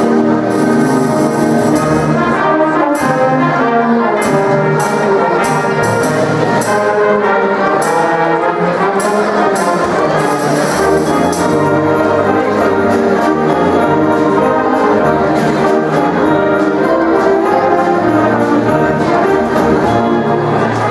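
High school symphonic band playing a Christmas medley, with brass prominent over sustained notes from the full ensemble and light percussion strokes in the first half.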